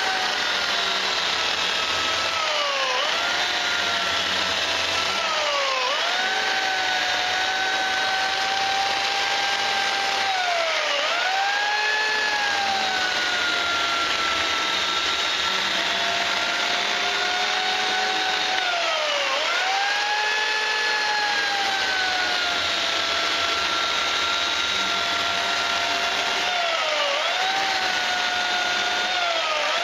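Remington 2.0 HP electric chainsaw running continuously while cutting grooves into the rubber tread of a 40-inch TSL mud tire. Its steady motor whine sags in pitch each time the chain is pushed into the rubber and climbs back as the load eases, about half a dozen times.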